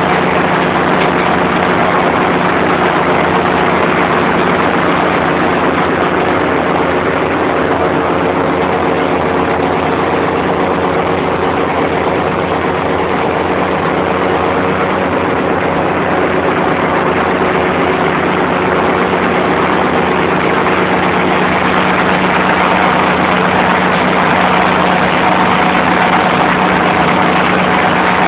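Ferrari Fox compact tractor's engine running steadily under load while it mows tall grass.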